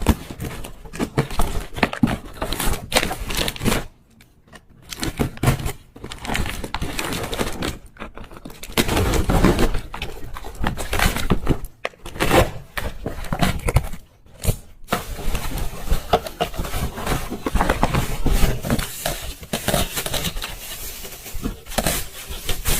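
Close-up handling noise: rapid clicking, scraping and rustling of objects being worked by hand, in several bursts broken by brief pauses.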